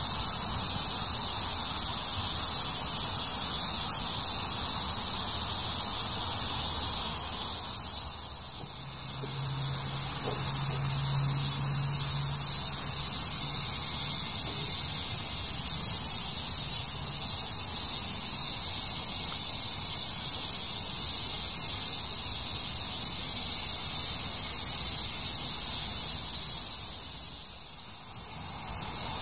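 Steady chorus of summer cicadas, a continuous high-pitched hiss that dips briefly twice.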